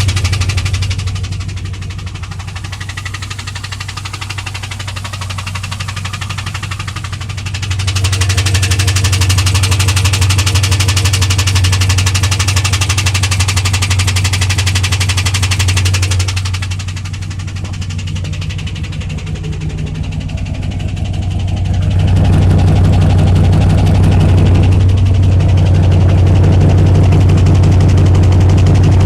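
2001 Pontiac Trans Am WS6's LS1 5.7-litre V8 idling steadily with a ticking, knocking sound that came on after the engine ran out of oil and its oil pressure fell to zero. The sound grows louder and quieter in stretches while the idle speed stays the same.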